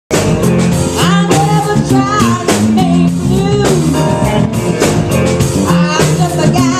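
A band playing with drums, guitar and bass, and a voice singing gliding, sustained notes over them.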